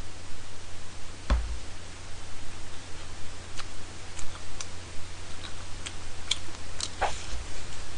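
A person eating tteokbokki with chopsticks: scattered small clicks of chewing and chopsticks, with a soft thump about a second in and another near the end.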